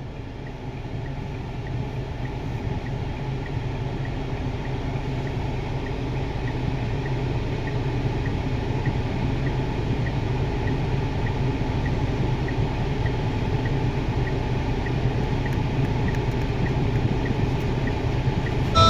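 Tata Harrier/Safari's 2.0-litre Kryotec diesel engine running with a steady low rumble, getting slightly louder over the stretch, with a faint regular tick about twice a second.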